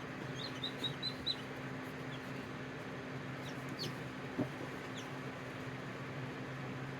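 Chicks peeping: a quick run of about five short high peeps near the start, then a few falling chirps later on. They sit over a steady low machine hum, with one soft knock a little past halfway.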